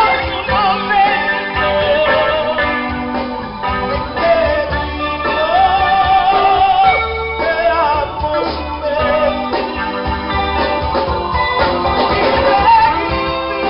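A band playing a song: a voice singing with vibrato over electronic keyboard with an organ sound, bass guitar and drums.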